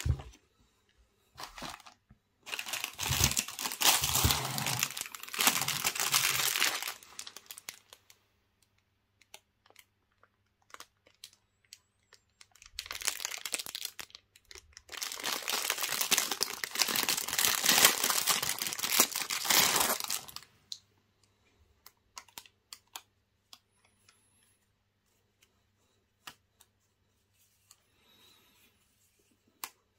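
Clear plastic packaging crinkling and tearing as it is pulled open by hand, in two long stretches of several seconds each, with scattered light clicks and taps between them.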